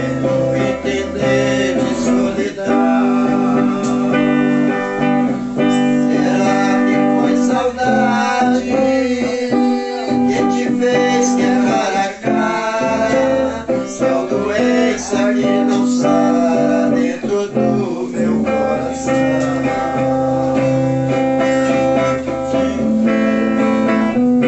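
Electric guitar playing: picked melody notes over steady held chords and a low bass line that changes every couple of seconds.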